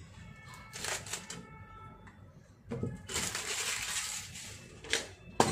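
Hands handling a playing-card deck and its paper tuck box: rustling and scraping for about a second and a half in the second half, then a sharp tap near the end, the loudest sound. A short faint tone sounds about half a second in.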